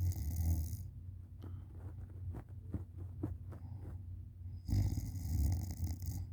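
A sleeping woman snoring on her back with her mouth open: a low snore, which she likens to a tiny tractor. It fades out about a second in, faint clicks follow, and another snore comes near the end.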